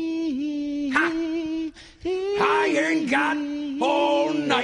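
A man singing unaccompanied in long held notes with vibrato, in two phrases with a brief pause about two seconds in.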